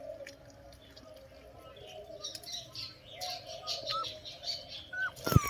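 Puppies whimpering, with short high squeaks about four and five seconds in, and a sharp knock near the end.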